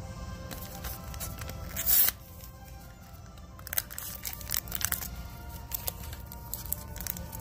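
Background music over a Pokémon booster pack's printed card-and-plastic sleeve being torn open: one loud tear about two seconds in, then irregular crinkling and tearing of the packaging from about four seconds on.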